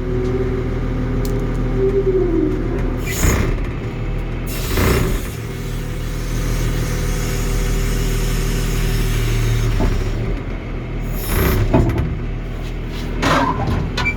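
John Deere 710D backhoe's diesel engine running steadily at idle, with a few brief rushing noises over it, twice early on and twice near the end.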